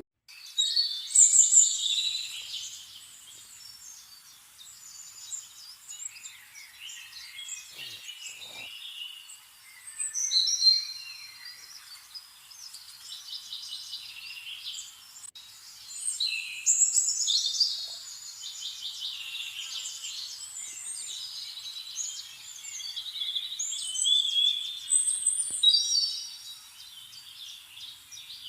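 Several small birds chirping and singing at once: a dense, continuous chorus of high chirps and quick trills, louder in spells.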